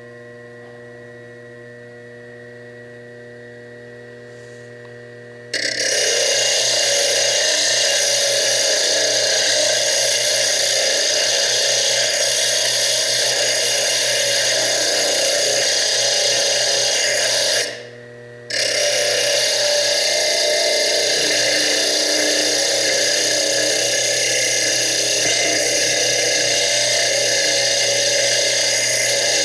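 Foredom bench lathe with a small diamond slitting disc cutting slots into fire agate: after a few seconds of low steady hum, a loud high-pitched grinding begins as the disc is pressed hard into the stone. It breaks off briefly about 18 seconds in and then resumes, the motor working under heavy pressure.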